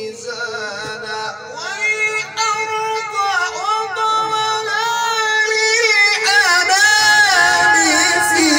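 A male qari reciting the Quran in the melodic mujawwad style, drawing out one vowel in a long, ornamented melisma through a microphone. He grows louder about six seconds in.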